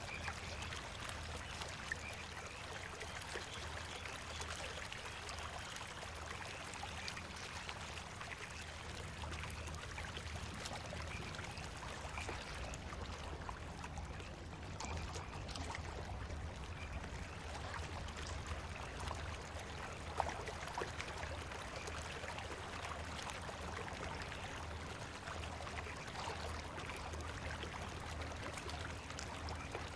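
Recorded soundscape of flowing, trickling water played over the stage sound system, steady throughout, with a low hum under it.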